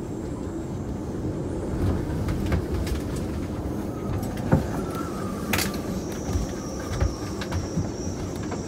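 Storm wind buffeting a moored sailboat in gusts of roughly 45 to 58 knots: a continuous low rumble with scattered sharp knocks, the loudest about four and a half seconds in. A thin high whistle comes in about halfway through.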